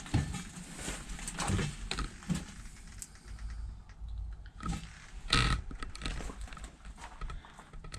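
Irregular crunches, scrapes and clicks of someone moving among rubble and debris, over a low rumble of handling noise, with a louder scrape about five seconds in.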